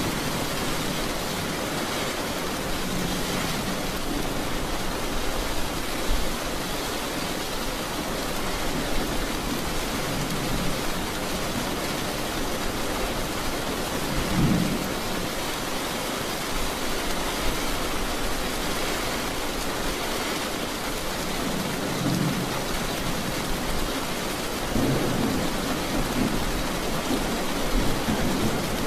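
Heavy rain drumming steadily on a car's roof and windscreen, heard from inside the cabin, with a few brief low rumbles swelling up along the way.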